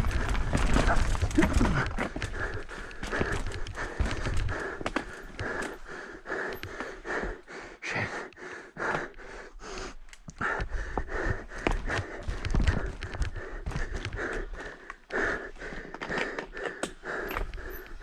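Knolly Fugitive LT mountain bike descending rough singletrack at race speed: a constant clatter of chain and frame over roots and rocks, with tyres on dirt and the rider breathing hard. Wind rumble on the mic is heavy in the first few seconds and then eases.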